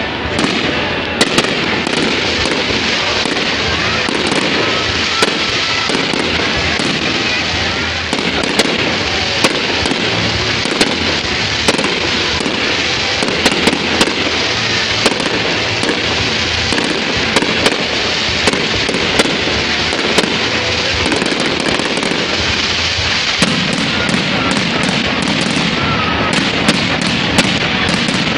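Fireworks going off continuously: a dense, steady rush of noise broken by sharp bangs at irregular intervals, roughly one a second.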